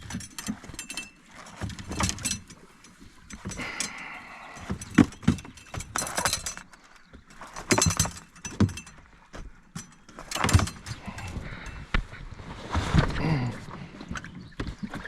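Irregular knocks, clunks and rattles of gear being handled in and around a small fishing boat, with a brief squeak about four seconds in.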